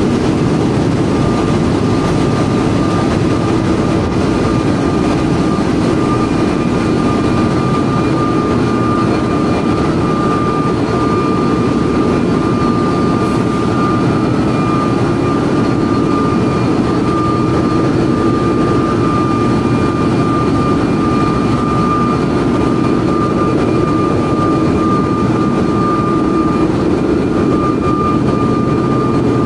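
Loud, steady machinery noise in the engine room of an LNG carrier with dual-fuel diesel-electric propulsion: a dense low rumble with a constant high whine over it.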